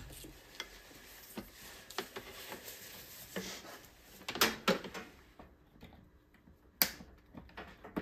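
Handling noise while the motor's power cord is being plugged in: light rustling with scattered clicks and small knocks. The sharpest clicks come a little past halfway and near the end.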